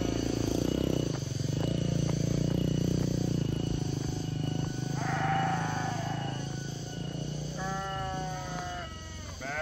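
A motorcycle engine running at low speed, fading away about three-quarters of the way through. Then repeated wavering bleats from livestock, a few short calls in quick succession near the end.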